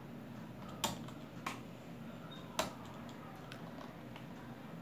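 A few separate computer-keyboard key presses over a faint room hiss: three clear clicks in the first three seconds at uneven spacing, then a couple of fainter ones.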